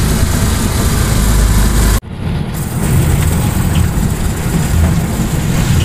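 Motorcycle engine of a tricycle running while riding in its sidecar, with steady wind and road noise. The sound drops out abruptly for an instant about two seconds in, then resumes.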